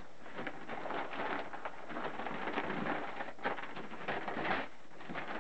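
Newspaper rustling and crinkling as the sheets are folded over from the corners around a handful of fat and sawdust: a steady stream of irregular crackles, with a louder crumple about four and a half seconds in.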